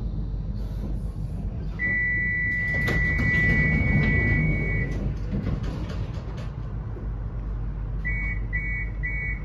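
Tram door warning tones over the low hum of the tram at a stop. A steady high electronic tone sounds for about three seconds, then near the end rapid beeps repeat about twice a second.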